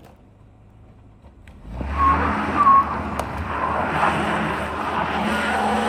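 Cadillac XTS engine revving hard while its tyres spin and squeal, scrabbling for grip on a steep slope; the car is losing traction on the climb. The sound starts suddenly about two seconds in and holds steady.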